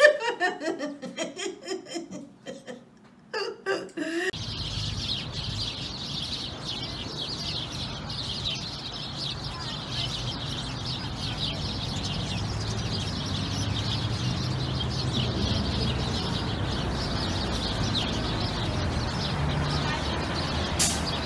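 Voices and laughter for the first few seconds, then many small birds chirping densely and without pause in a leafy tree, over a low steady rumble.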